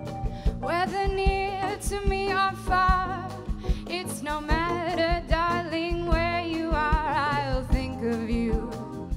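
Live jazz band playing a swing tune: a wavering melodic lead line over bass, drums and hand percussion, with a steady beat.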